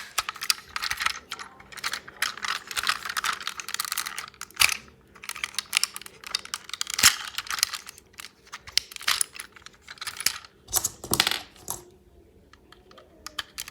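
Hard plastic parts of a transforming robot toy clicking, rattling and snapping as it is twisted by hand from one form into the other. The clicks come in quick flurries, with a few louder single snaps, and they thin out near the end.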